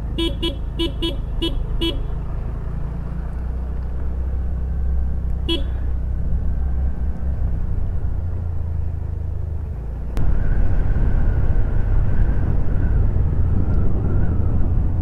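A vehicle horn tooting five times in quick succession, then once more a few seconds later, over a steady low engine rumble. Just after ten seconds in, the rumble gets louder.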